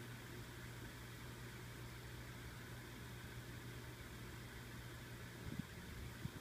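Faint steady low hum with a light hiss, background equipment or room noise, with a few soft knocks near the end.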